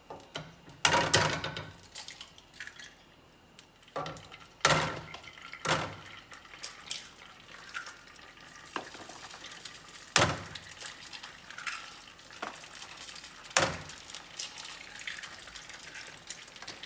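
Pots, pans and metal utensils clanking while eggs are prepared: several sharp knocks spaced a few seconds apart, with lighter clinks between them.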